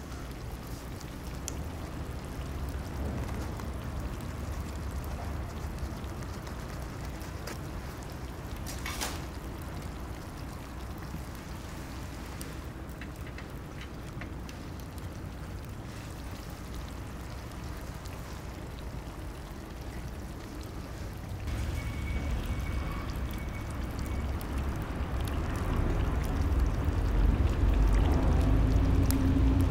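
Olive oil in an ajillo pan sizzling and bubbling over the heat, a steady crackling hiss. A low rumble builds over the last few seconds.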